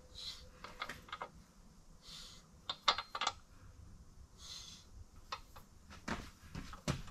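Scattered metallic clicks and clinks, in small clusters, as a bare BMW N55 crankshaft is turned by hand in its main bearings in the block. The crank is being rotated under a dial indicator to check main journal runout.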